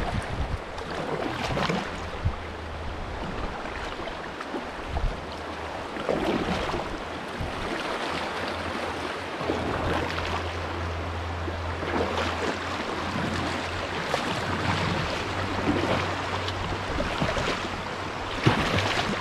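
Fast river water rushing through shoals around a kayak, with irregular splashes from paddle strokes and chop against the hull.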